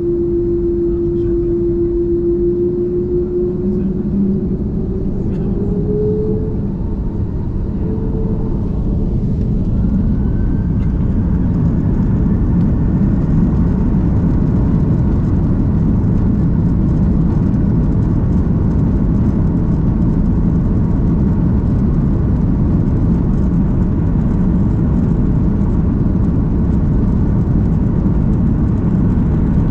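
Jet airliner engines heard from inside the cabin, spooling up for takeoff. A steady whine climbs in pitch over the first ten seconds as the noise grows louder, then settles into a steady loud rumble of the takeoff roll.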